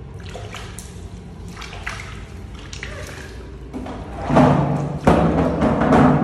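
Water lightly splashing and trickling as a baby monkey is bathed in a plastic basin. About four seconds in, loud music with a low held note comes in, breaks off briefly near five seconds and returns.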